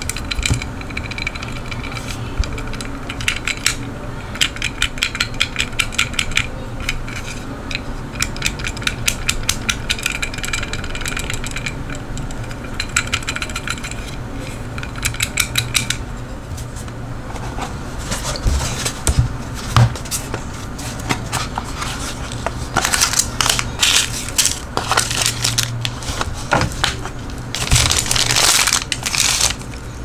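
Close handling noise of a small plastic pocket knife sharpener turned and rubbed between the fingers: fast runs of little ticks and clicks in the first half, then louder scraping rustles in the second half.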